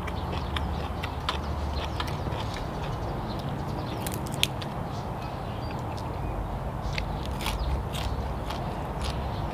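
A person chewing and crunching raw vegetables, with many short crisp clicks and crackles from the mouth and a single sharper crack about four and a half seconds in, over a steady low hum.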